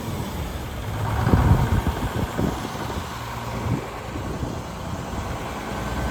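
Sawmill's engine running at idle, cold and freshly started. It swells briefly about a second in, then settles to a steady idle.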